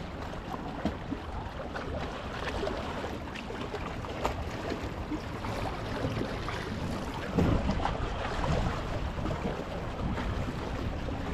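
Wind rumbling on the microphone over small waves lapping and splashing against shoreline rocks, with a stronger gust about seven seconds in.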